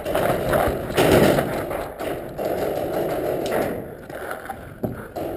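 Sped-up helmet-camera sound of a paintball player on the move: a rumbling jumble of scuffs and knocks, with a few sharp thumps.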